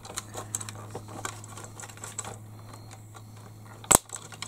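Small clicks and taps of hard plastic parts and a metal pin being handled as the toy excavator's bucket linkage is taken apart, with one sharp, loud click about four seconds in. A steady low hum runs underneath.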